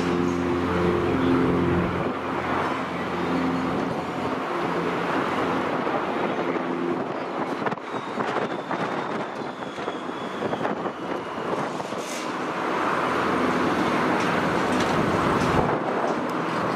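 Twin piston engines of a Britten-Norman BN2B-20 Islander turning their propellers at takeoff power, a steady drone that fades after about six seconds. Over it is a broad rushing noise, with gusty wind on the microphone, that swells again in the last few seconds.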